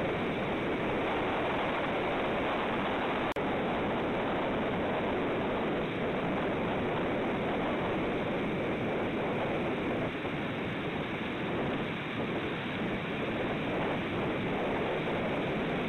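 Steady rushing noise of surf and wind at a cliff-top nest camera's microphone, even throughout, with a brief dropout about three seconds in.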